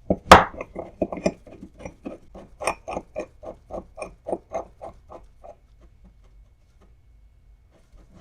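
A steel mini vise's screw being turned by hand, giving an even series of metal clicks, about four or five a second, after one loud knock at the start. The clicks fade out after about five seconds.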